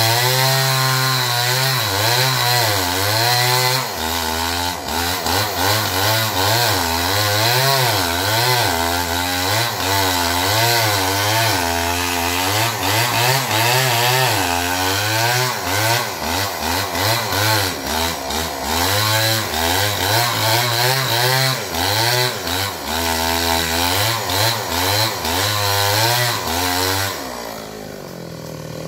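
Two-stroke chainsaw cutting into an oil palm trunk, its engine speed rising and falling constantly as the chain bites under load. Near the end the cutting stops and the engine eases off.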